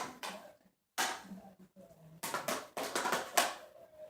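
Toy weapons striking each other in a play fight: about seven sharp smacks, unevenly spaced and bunched in quick succession in the second half.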